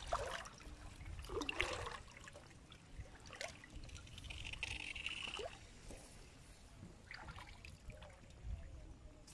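Shallow water splashing and trickling, with leaves rustling, as a person wades through flooded water hyacinth and grass. A few short splashes stand out, and a low wind rumble on the microphone runs under them.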